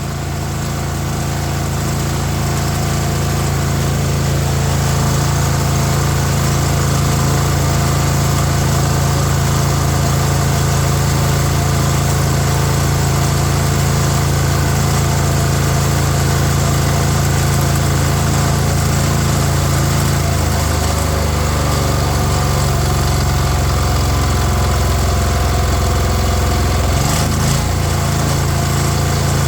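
Small single-cylinder petrol engine of a water blaster running steadily on a newly fitted carburettor, unloaded with its water pump removed. Its note shifts lower about two-thirds of the way through, with a brief waver near the end.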